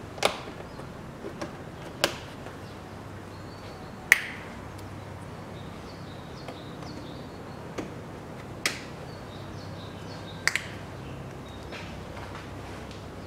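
Plastic push-in trim clips being set and pressed into a car's plastic cowl panel: about half a dozen sharp plastic clicks and snaps at irregular intervals, the loudest about four seconds in and a quick double click later on.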